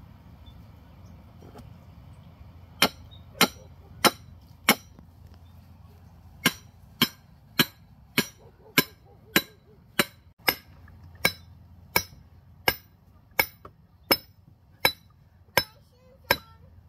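Hammer striking in a steady run of sharp blows, about one and a half a second, beginning about three seconds in with a short pause after the first four.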